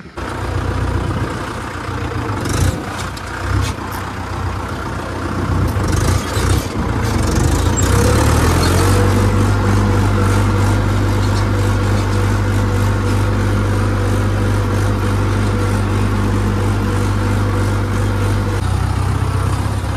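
Heavy farm diesel engine running close by, uneven at first and then settling into a steady, loud low hum about nine seconds in.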